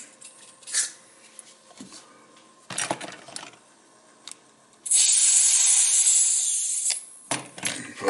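Butane refill can hissing steadily for about two seconds as gas is injected into the vintage Firebird lighter's brass fuel tank valve. A few light knocks come before it.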